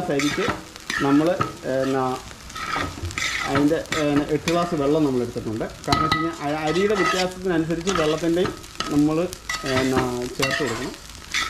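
A long flat steel spatula scraping and turning rice in a large aluminium pot, one stroke about every second, each giving a pitched, wavering scrape against the metal.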